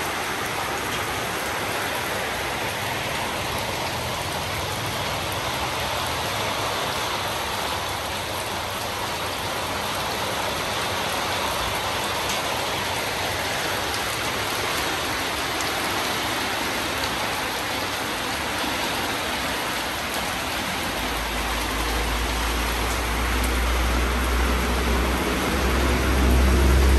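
Steady rain falling, an even hiss. Near the end a low rumble comes in and grows louder.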